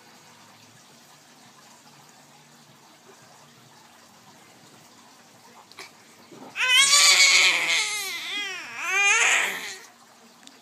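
A baby's loud, high-pitched vocalising, about three seconds long, its pitch wobbling up and down over and over, breaking a stretch of quiet.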